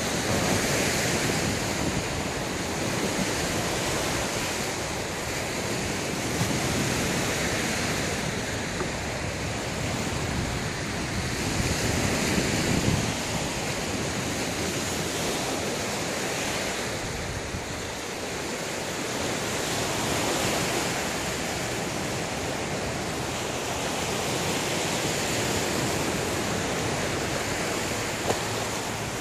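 Waves breaking and washing against a rocky shore, mixed with wind blowing across the microphone; the surf swells and eases every few seconds.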